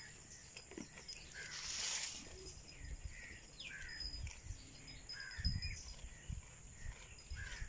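Scattered short bird chirps over faint outdoor farmyard ambience, with a brief rush of noise about two seconds in.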